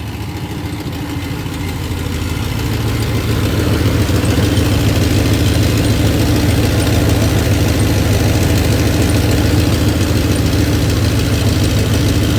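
Dodge 5.9 L Magnum 360 V8 idling steadily at full operating temperature, its thermostat open. The sound grows louder between about two and four seconds in, then holds steady.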